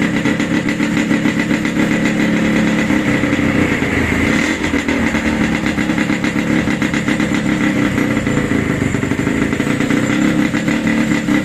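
Yamaha RX-King's 135 cc two-stroke single-cylinder engine running steadily after an engine rebuild.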